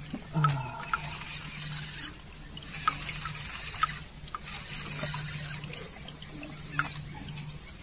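Riverside ambience: water trickling under a low hum that comes and goes, with a few sharp clicks scattered through it.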